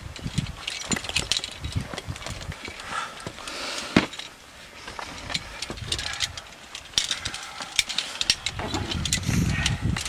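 Climbing hardware being handled: scattered clicks and clinks of carabiners on a harness, with one sharp click about four seconds in, over gusts of wind buffeting the microphone near the start and near the end.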